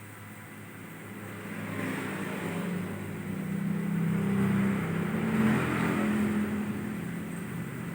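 A motor vehicle's engine hum that swells and then fades, as when one passes by.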